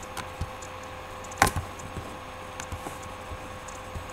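A few light clicks and taps over a steady hum, with one sharp knock about a second and a half in.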